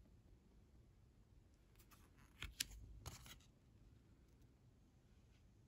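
Near silence with a few faint clicks and rustles of baseball trading cards being handled and flipped by hand, between about two and three and a half seconds in.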